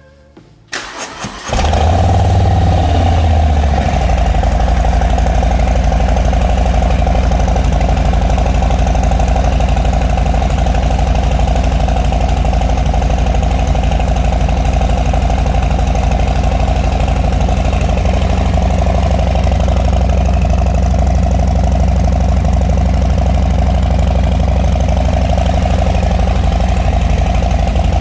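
Harley-Davidson Milwaukee-Eight V-twin running through a newly fitted Bassani Road Rage III 2-into-1 stainless exhaust. The starter cranks briefly and the engine catches about a second and a half in. It runs a little stronger for a couple of seconds, then settles into a steady idle.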